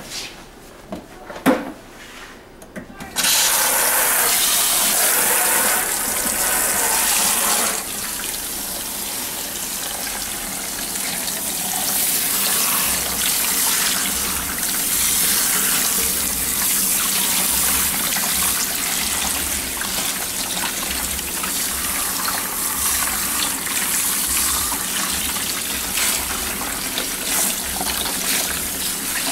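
Water running from a shampoo-bowl sprayer hose onto hair and into the sink. It comes on suddenly about three seconds in, is strongest for the next few seconds, then runs on steadily. Before it comes on there are a few light knocks, one of them sharp.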